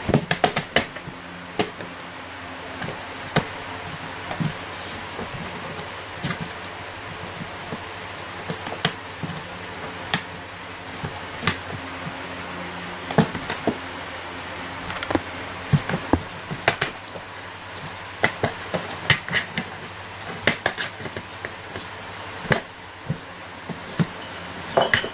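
Irregular taps, knocks and scratches of a cat's paws and claws against a cardboard box as it swats from inside, some in quick clusters, over a steady background hiss and hum.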